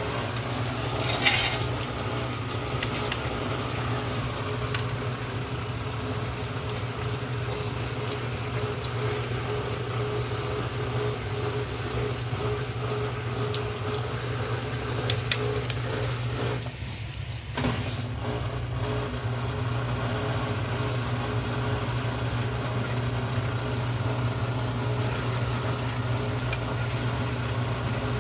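Heavy-duty washing machine running its cycle: a steady motor hum with clicks and rattles from the machine, dipping briefly about two-thirds of the way through before it carries on.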